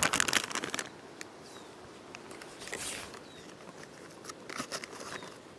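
Dog crunching and chewing a treat: a dense burst of crunching at the start, then scattered bites and clicks.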